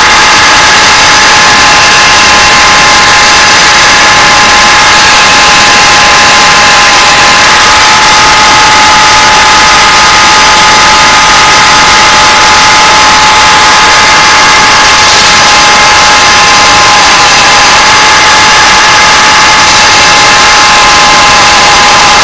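Electric sander running steadily with a loud whine, grinding the edge of a steel lawn mower blade.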